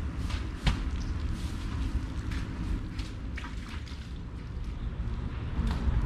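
Water lapping and splashing lightly at the river's edge in short, irregular ticks, over a steady low rumble.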